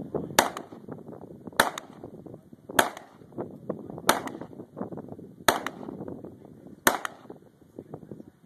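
Six pistol shots fired at an even, deliberate pace, about one every second and a quarter. Each is a sharp crack followed at once by a short echo.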